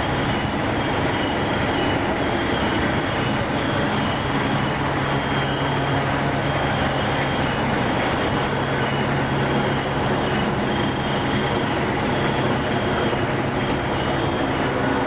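Steady drone of fire apparatus diesel engines running in the street.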